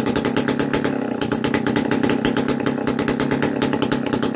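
Old Sachs Stamo single-cylinder two-stroke stationary engine running steadily at idle, with a rapid, even exhaust beat.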